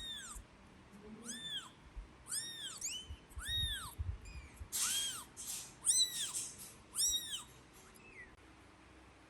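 Newborn kitten crying: a run of high, arching mews, about one a second, that stop near the end.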